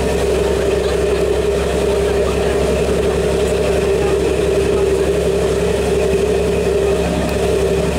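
Passenger ferry's engine running steadily under way, a constant drone with a strong mid-pitched hum and a low rumble beneath, heard on the open stern deck.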